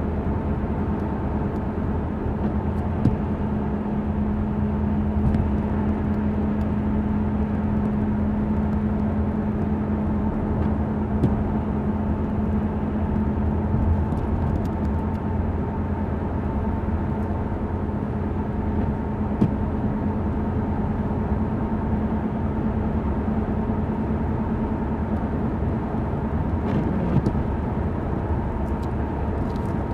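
Steady cabin noise of a 2005 Ford Explorer Sport Trac cruising at highway speed: engine and tyre noise on wet pavement, with a steady low drone and a few faint ticks.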